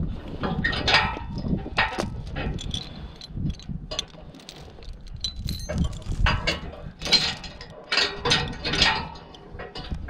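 Metal chain rattling and clinking in irregular bursts as a hitch chain is handled and unhooked at a spring-tooth harrow, with rustling on dry grass.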